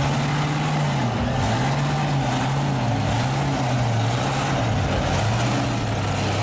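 Heavy truck engines straining under load in a truck tug-of-war, the engine pitch surging up and down several times and then holding steady near the end.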